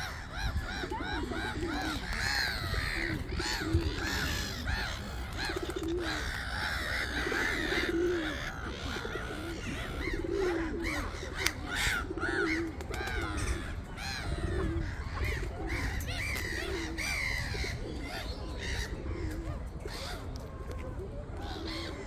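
A noisy chorus of birds: feral pigeons cooing over and over in low arched phrases, mixed with the harsh calls of black-headed gulls and higher chirps.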